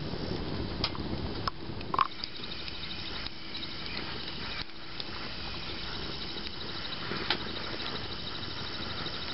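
Wood fire burning in a steel bucket under a sealed paint-can charcoal crucible: a steady hiss with a few scattered sharp pops and crackles. Smoke and wood gases are pouring from the can's vent holes as the wood inside cooks into charcoal.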